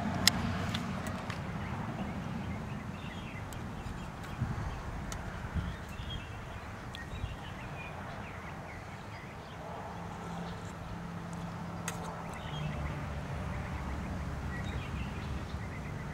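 Outdoor ambience while eating: a spoon clicks now and then against a metal mess plate, over faint bird calls and a low steady hum.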